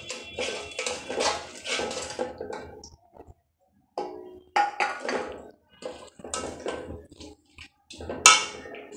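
Stirring spoon scraping and knocking around an aluminium wok in quick repeated strokes while cornflour slurry is poured in to thicken the chili chicken sauce. There is a brief break about three seconds in and a single sharp clack near the end.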